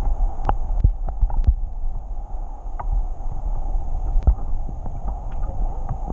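Shallow river current over a rocky bed heard from underwater: a steady low rumble and muffled rush, with scattered sharp clicks, the loudest about four seconds in.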